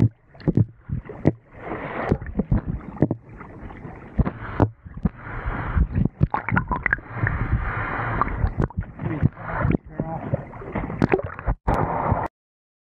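Wind and water noise on a small boat, broken by many sharp knocks and thumps, with several abrupt changes. The sound cuts off to silence near the end.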